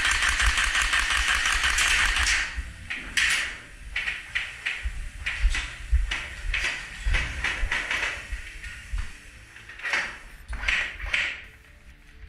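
Airsoft gunfire: a long burst for about the first two and a half seconds, then a run of short bursts.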